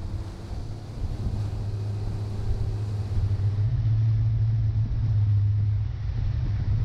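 Suzuki 350 hp V6 outboard running under way, a steady low drone with the rush of the wake, growing louder over the first few seconds.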